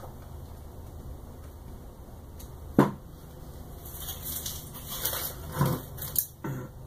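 A single sharp knock of a hand tool being set down, then crinkling of brown packing paper as pliers are dug out of it, with a few light clunks, over a steady low hum.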